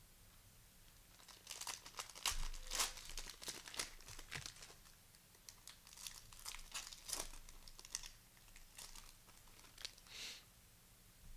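Cellophane wrapper of a basketball trading-card cello pack being torn open and crinkled, a long run of sharp crackles and rustles.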